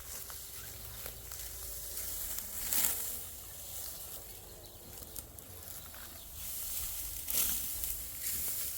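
Outdoor rustling and hissing noise, with louder swishes about three seconds in and again near the end.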